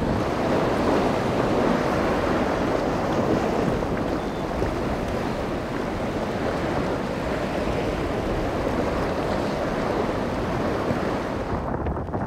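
Steady rush of wind buffeting the microphone over choppy surf, with no clear engine note; the hiss thins out near the end.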